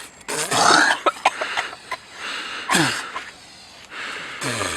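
A man's wheezy, breathy grunts and gasps, three of them, the last two falling in pitch, as he strains to tear tough rabbit skin with his teeth.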